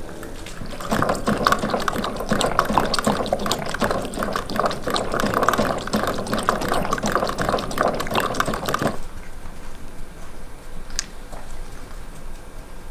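A liquid sound, dense and crackly like water being filled or splashed, starts about a second in and stops abruptly after about eight seconds.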